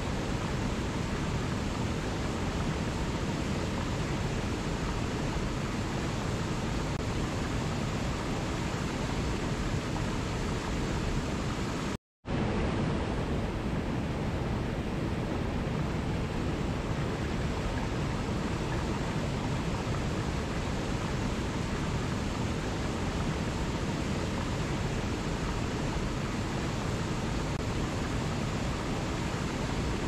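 Steady, even rushing of a small waterfall and stream cascading over rocks. About twelve seconds in the sound cuts out completely for a split second, then resumes unchanged.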